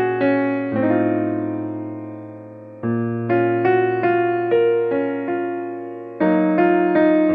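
Background piano music: a slow melody of struck notes, each fading away, over low chords that change every few seconds.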